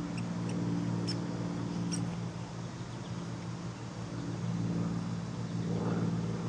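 A steady low mechanical hum of a motor running in the background, with a few faint sharp clicks in the first two seconds.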